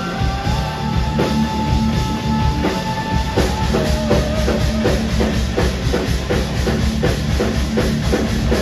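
Rock band playing live, instrumental: a steady drum beat under held, sustained electric guitar notes, with no vocals.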